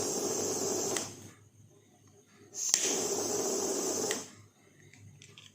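Butane blow torch firing twice, each time a steady hiss of burning gas lasting about a second and a half and then shut off. The second burst is opened by a sharp click of the igniter.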